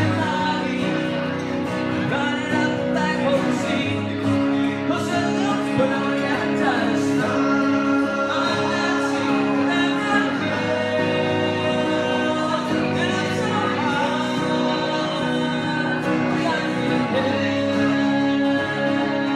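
Live band music: a man singing lead over a strummed acoustic guitar and an electric guitar, with the sung melody running throughout.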